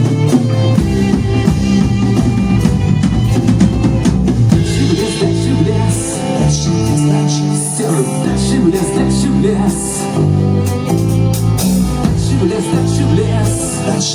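Live band playing with a drum kit and a bass line, the low notes changing every half second or so under steady drum hits.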